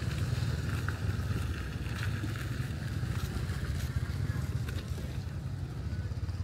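A motor vehicle engine running with a low, steady rumble.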